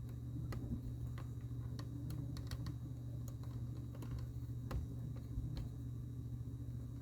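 Small, sharp, irregular clicks of hard plastic as a Lego minifigure and its parts are handled and turned, over a steady low hum.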